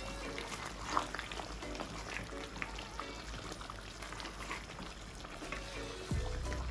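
Curry gravy simmering in a pot, with scattered small bubbles popping, under quiet background music; a deeper bass comes into the music near the end.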